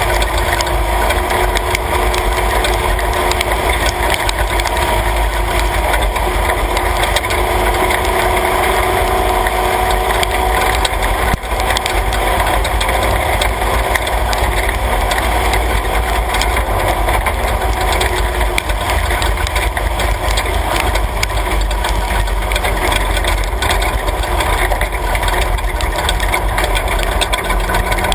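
Class 3 off-road race truck driving on a dirt road, heard from inside the cab: the engine runs at a steady pitch under a deep rumble of road noise.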